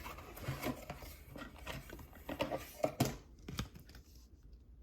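Trading cards and thin plastic card sleeves being handled: irregular rustling and crinkling, with a couple of light taps about three seconds in.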